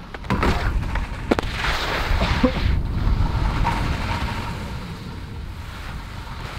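Skis sliding on snow and over park rails, with a sharp knock about a second and a half in, over a steady low rumble.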